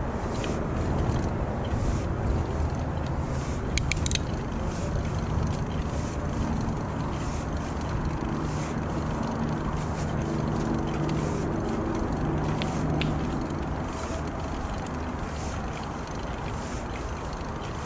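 Steady wind and rolling noise of a bicycle ride picked up by a chest-mounted action camera, with a low hum strongest in the middle and a few quick clicks about four seconds in.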